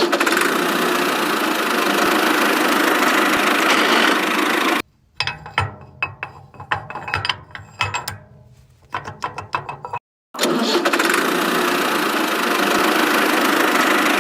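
Steady, loud engine-like running noise that cuts off abruptly about 5 s in. Irregular clattering and knocks follow, then after a brief silence at about 10 s the running noise returns.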